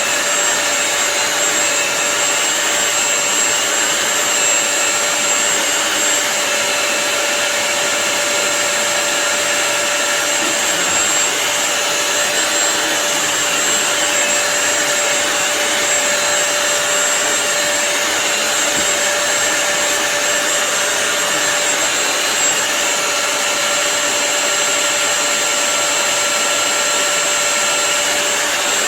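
Bissell CrossWave wet-dry floor cleaner running steadily, its motor giving a constant whirring rush with a steady whine over it.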